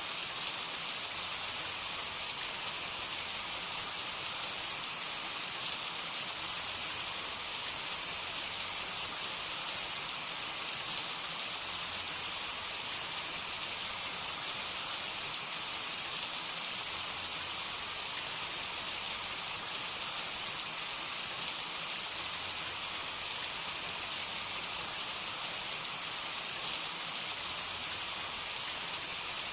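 Food sizzling steadily in hot oil in a pan, a continuous hiss with small scattered crackles.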